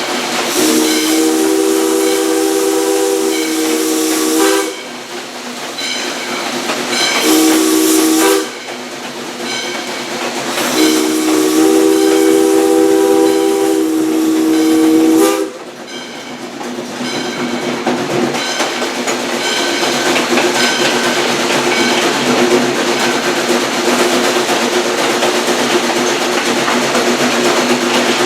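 Chime steam whistle of Valley Railroad Mikado No. 40, a 1920 ALCO 2-8-2, sounding a chord in three blasts: a long one, a short one, and a long one. After the last blast comes a steady steam hiss with a fainter held tone.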